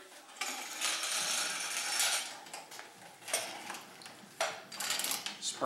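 Motorcycle fork leg being taken apart by hand: a rasping, hiss-like slide of metal parts for about a second and a half, then scattered light metallic clicks and clinks.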